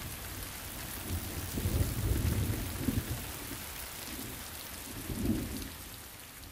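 Heavy rain pouring steadily, with a low rumble of thunder swelling about a second and a half in.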